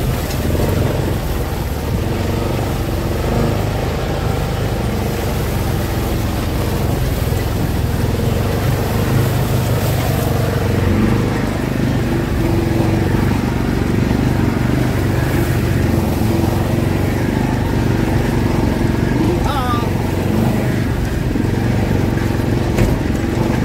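Side-by-side UTV engine running steadily under way, with tyres rolling over a rutted, snowy dirt track.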